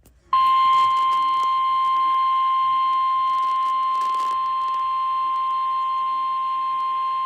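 Emergency-alert warning alarm tone, one continuous steady high tone starting just after a brief gap. It is the signal that a warning message is about to be read; the single pitch just above a thousand hertz fits the 1050 Hz tone that NOAA Weather Radio sounds before warnings.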